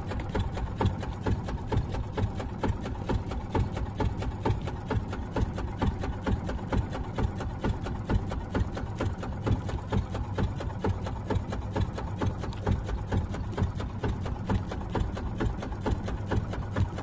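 Small boat engine running steadily, with a fast, even knocking beat over a low hum.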